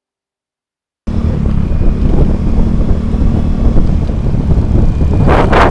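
Motorcycle engine running loud through an aftermarket exhaust, with wind buffeting the microphone. It cuts in suddenly about a second in, after silence.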